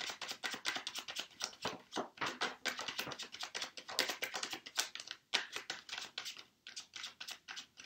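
Tarot cards (Rider-Waite deck) being overhand-shuffled by hand: quick, irregular clicks and rustles of cards slapping together, several a second, thinning out near the end.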